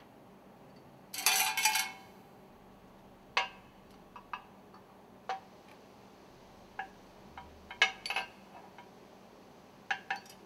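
Metal stuffing box ring segments and their springs clinking as they are taken off the piston rod and laid on the work table: a short dense rattle about a second in, then single light clinks every second or two.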